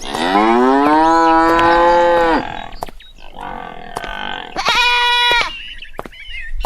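Farm animal calls: a long, loud moo-like call that rises in pitch for about two seconds, then, about two seconds later, a shorter and higher bleat.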